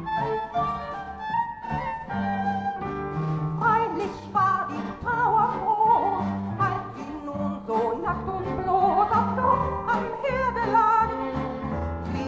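Orchestral music with a wavering vibrato melody over a steady accompaniment, in an instrumental passage between sung verses of a song.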